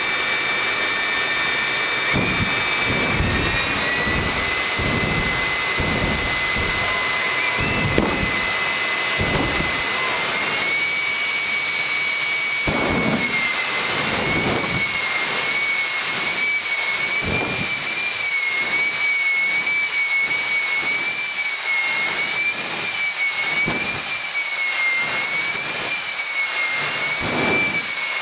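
The jet engine of the Bone Shaker jet semi truck running hard with its afterburner throwing flame. It makes a loud, steady high whine that steps up in pitch twice early on, then wavers up and down for the rest of the time, over irregular low rumbles.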